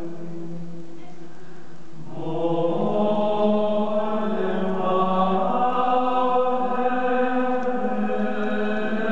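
Slow background music of long, held, choir-like notes. About two seconds in it grows louder and fuller, with more notes layered above.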